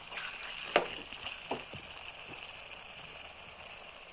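Chili chicken sizzling gently in a pan on the stove, a steady hiss, with one sharp clink of a utensil about a second in and a few soft knocks after.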